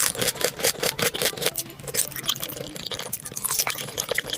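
Close-miked crunchy chewing: a person biting into and chewing crisp food in quick, irregular crunches.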